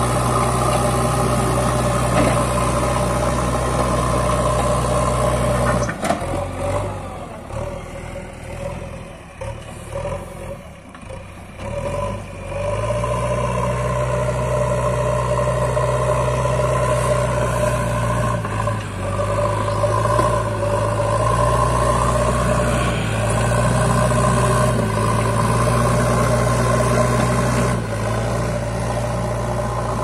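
JCB 3DX backhoe loader's diesel engine running under load as the front bucket pushes soil. Its sound drops away for several seconds in the middle, then runs loud and steady again.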